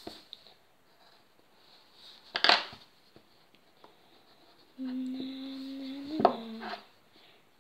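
A single sharp knock on the desk about two and a half seconds in, then a child humming one steady low note for about two seconds, which steps up briefly near the end with a light tap on the desk.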